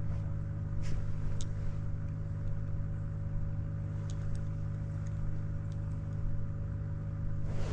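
A motor humming steadily at a constant pitch, with a few faint light clicks.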